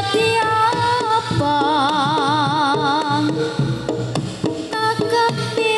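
Jaranan music: a Javanese gamelan-style ensemble plays, with drum strokes under a sustained melody line that holds a wavering note from about a second and a half to three seconds in.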